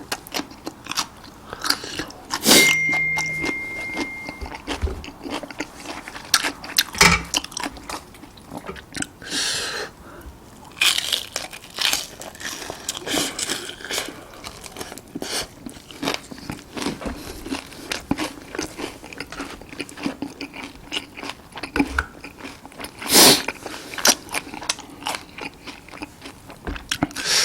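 Close-miked crunching and chewing of crispy fried chicken, with sharp crackling bites throughout and a few louder crunches.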